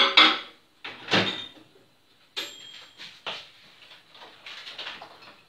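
Microwave oven door clicking open, a dish of butter set inside and the door knocked shut, followed by several lighter clicks and knocks as the oven is set to melt the butter.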